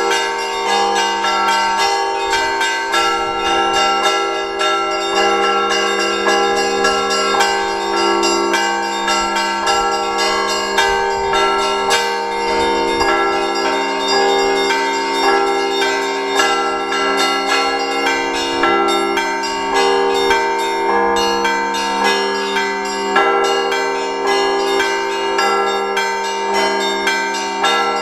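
Russian Orthodox church bells rung by two bell-ringers as a Sunday peal after the liturgy. Rapid, dense strikes of the smaller bells ring over steady, sustained tones of the larger bells.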